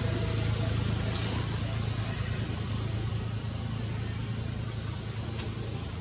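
A steady low motor hum, slowly fading, with a faint steady high tone above it.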